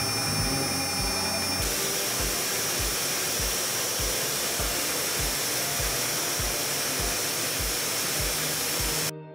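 Milling machine cutting a 6 mm keyway into a metal shaft end with a small end mill: a steady, dense cutting and spindle noise that cuts off abruptly near the end. Background music with a steady beat runs underneath.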